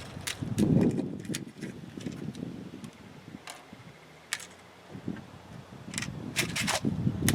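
Scattered light clicks and rustling from hands handling electrical wire and small connector parts, with a louder stretch of handling noise about a second in.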